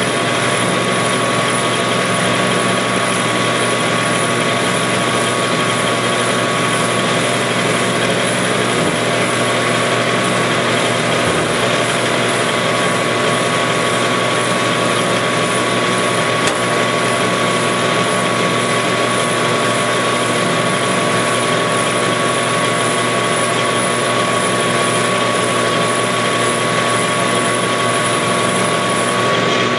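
Metal lathe running steadily at speed while turning a 40-thousandths pass on a stainless steel Stirling engine hot cap, with a steady whine.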